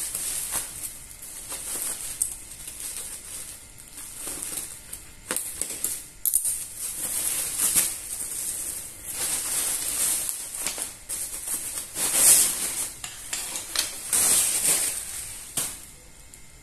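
Plastic bubble-wrap packaging crinkling and crackling as it is handled and pulled off a folded camping chair's bag, in irregular spells of rustling that die down near the end.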